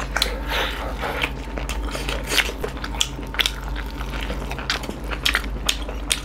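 Two people chewing and biting beef curry with rice eaten by hand: a stream of irregular, wet mouth clicks over a faint low hum.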